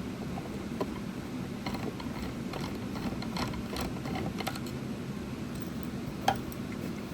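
Irregular light clicks and ticks of hands and tools working on a small plastic-and-wood speaker cabinet as it is taken apart, over a steady low hum. A sharper click comes about six seconds in.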